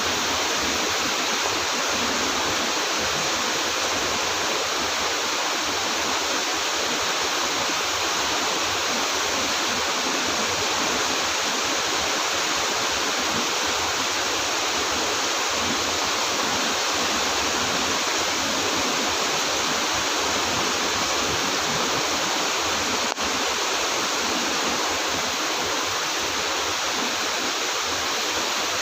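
Heavy rain falling steadily, an even hiss that holds without a break.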